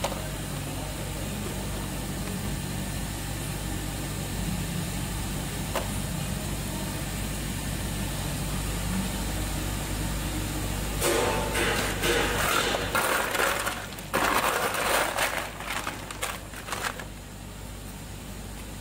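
Steady low mechanical hum of a running tube ice machine. About two-thirds of the way in come several seconds of loud, irregular, harsh noise.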